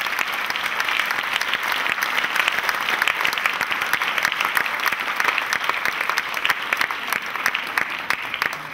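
Theatre audience applauding: dense, steady clapping that dies away near the end.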